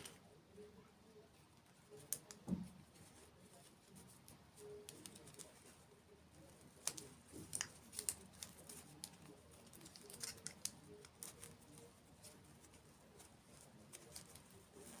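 Faint, scattered crisp clicks and crackles of eating sweets: crunching bites and mouth sounds, irregular, with a cluster about two seconds in and more around the middle.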